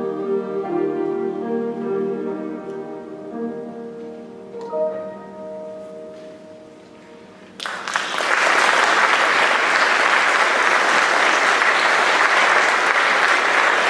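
Mixed choir holding the final sustained chord of a song, fading away over several seconds. About halfway through, the audience breaks into applause, which stays steady to the end.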